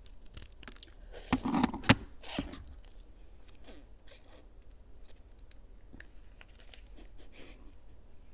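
Close-miked handling of fruit-jelly snacks: a burst of crinkling, tearing and sharp clicks about one and a half seconds in, the loudest click just before two seconds, then sparse faint ticks and rustles.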